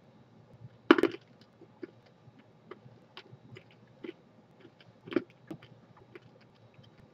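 Teeth biting down on an Everlasting Gobstopper jawbreaker: a loud crack about a second in, another about five seconds in, and scattered small clicks of the hard candy against the teeth in between.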